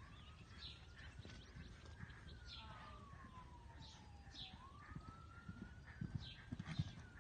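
A faint siren wails, rising and falling slowly twice, while birds chirp. About six seconds in, a horse's hoofbeats on sand thud louder as it canters closer.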